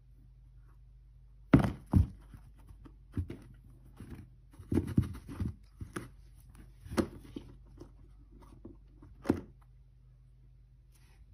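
A cat playing inside a cardboard box, batting and scrabbling at a wand toy through a small window: irregular thunks and scrapes against the cardboard, the loudest two close together about a second and a half in, a busy cluster in the middle, and a last one near the end.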